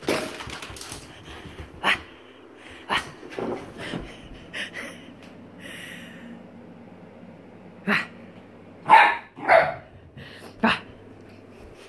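Small terrier barking in short, sharp, scattered barks while playfully excited with the zoomies, the two loudest barks close together about three-quarters of the way through.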